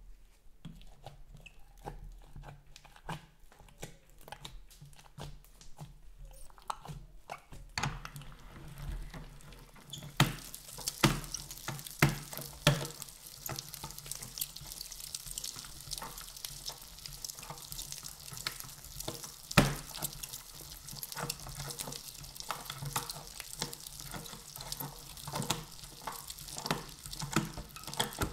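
Bead-filled green slime being forced through a hand-cranked meat grinder: wet squelching and crackling with many sharp clicks. It is sparse at first and grows denser and louder about ten seconds in as the minced slime pours from the grinder plate.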